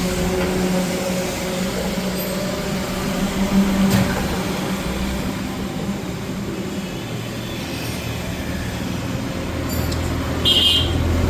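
Steady street traffic noise with a running engine hum, a sharp click about four seconds in, and a short vehicle horn toot near the end.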